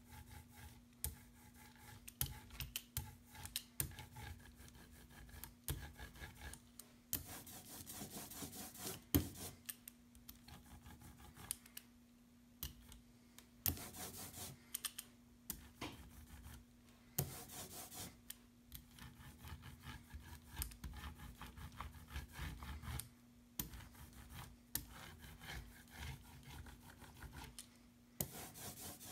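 An ink brayer rolling and rubbing over a carved wooden relief in repeated strokes, mixed with scattered clicks and knocks. A faint steady hum runs underneath.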